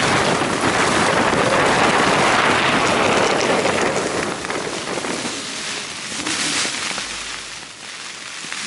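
Strong wind gust buffeting a Scarp 1 tent, with rain drumming on the flysheet. It is loudest for the first four seconds or so, then eases off.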